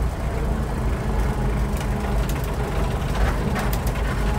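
A 1929 Ford Model A's four-cylinder flathead engine running at low speed, heard from inside the mail truck's cab. From about halfway through, sharp rattling clicks come in: the cab's interior sliding door rattling on its hanging rollers.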